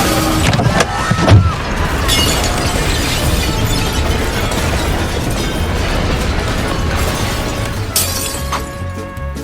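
A loud crashing, shattering sound effect about a second in, with a long noisy wash after it, over background music with a repeating bass line.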